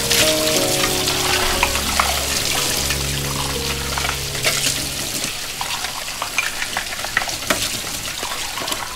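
Water running from a tap and splashing, with a dense crackle of small splashes. Soft background music plays under it and fades out about halfway through.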